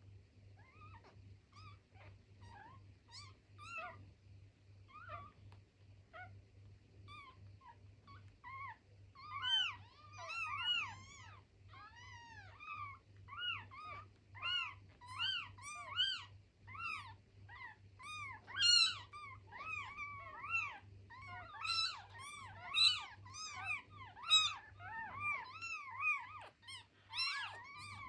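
Two-day-old newborn kittens mewing in short, high, thin calls: a few scattered cries at first, then from about a third of the way in many calls overlapping as several kittens cry at once. A steady low hum runs underneath.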